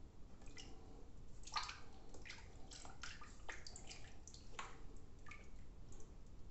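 Irregular splashes and drips of water at a washbasin, a dozen or so short wet sounds with no steady tap flow, during a wet shave.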